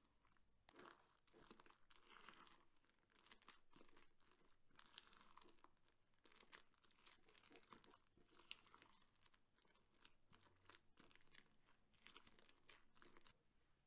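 Clear slime being handled and stretched, giving off a quiet, continuous run of small crackling pops and crinkles.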